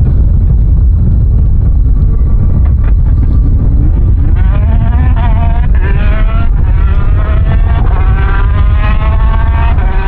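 Peugeot 208 T16 R5 rally car's turbocharged four-cylinder engine accelerating hard, faint at first, then from about halfway its pitch climbs and drops back several times as it shifts up through the gears, over a strong low rumble.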